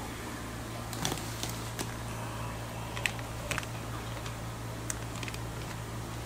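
Water-filled plastic fish bags being handled in a foam shipping cooler: scattered light crinkles and taps, about seven in all, over a steady low hum.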